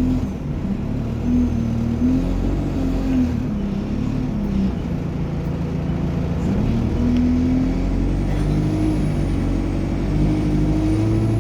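ADL Enviro200 bus's diesel engine and Allison automatic gearbox running under way, the engine note stepping and shifting in pitch. A high turbo whine rises and falls from about eight seconds in.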